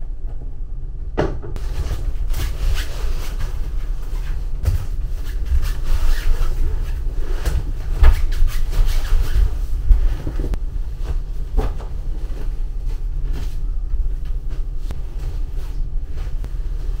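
The car ferry's steady low rumble, with knocks, thumps and rustling as folding mattresses are dragged and dropped onto the tatami floor and a sheet is shaken out over them.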